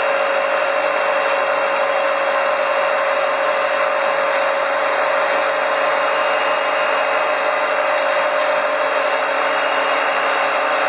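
Soy protein food extruder running under load: an unbroken whirring machine noise with a steady hum, as the screw pushes the steaming dough out through the die.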